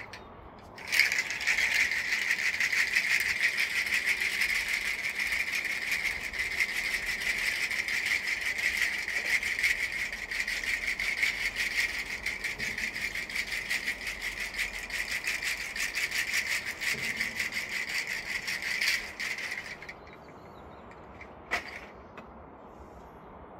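Handheld wooden-handled rattle shaken fast and steadily, a dense shimmering rattle. It starts about a second in and stops a few seconds before the end, followed by a single knock.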